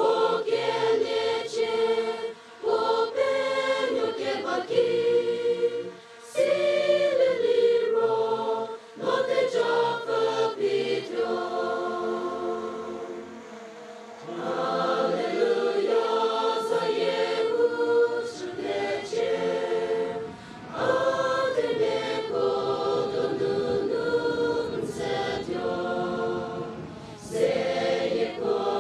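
Mixed youth choir of young women and men singing a hymn in Angami, in phrases with brief breaths between them. A low rumble runs under the singing in the second half.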